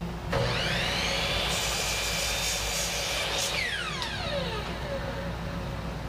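Electric saw motor starting with a rising whine and cutting through a Douglas fir board for about two seconds. The saw is then switched off and spins down with a falling whine.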